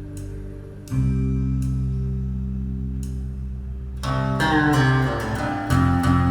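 Instrumental music with plucked guitar over deep held bass notes, played back through an Aiyima A07 Max amplifier and speakers. A heavy low note comes in about a second in, and a run of quick plucked notes starts about four seconds in.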